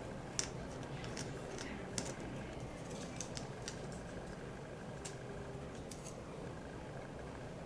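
Faint, scattered small clicks and ticks of a precision screwdriver and fingers on the metal parts of an opened iPhone 4 as a tiny screw is undone, over a steady low room hum.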